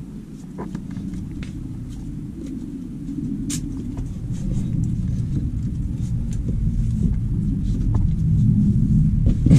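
Low rumbling, growing louder toward the end, with scattered short scrapes and clicks of a climber moving up a rock chimney: the microphone rubbing against clothing and rock, and hands and shoes scraping on the stone.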